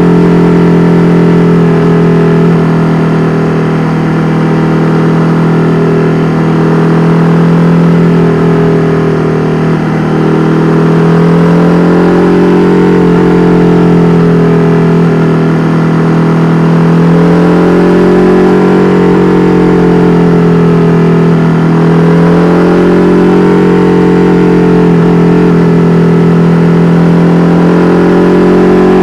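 KTM 1290 Super Duke R Evo's V-twin running through an Austin Racing V3 Mini exhaust, held at a steady engine speed with brief dips in pitch every several seconds as the throttle eases and comes back on.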